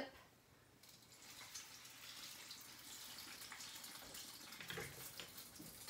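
Egg-soaked stuffed bread frying in hot oil in a skillet, just flipped: a soft sizzle with fine crackling that starts about a second in and then carries on steadily.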